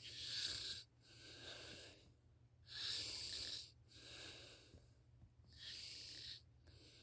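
A sleeping person's slow, heavy, noisy breathing, a snore-like rush of air on each breath: three louder breaths alternating with two softer ones, one roughly every one and a half seconds.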